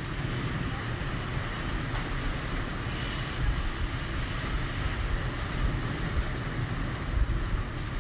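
Typhoon wind heard from inside a building: a steady low rumble with a faint hiss above it, swelling slightly a few times.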